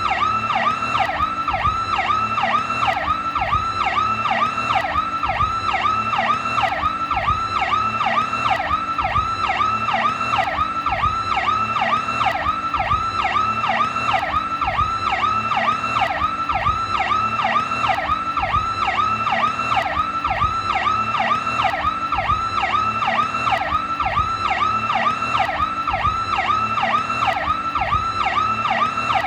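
Federal Signal PowerCall electronic police siren in its rapid cycle: fast rising-and-falling sweeps, about three a second, repeating steadily without a break.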